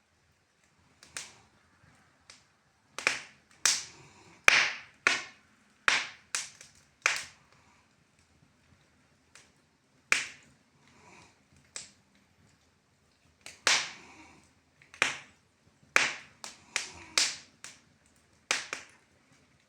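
Wood fire crackling in a fireplace: irregular sharp pops and snaps, sometimes several in quick succession and sometimes a few seconds apart, with a lull in the middle.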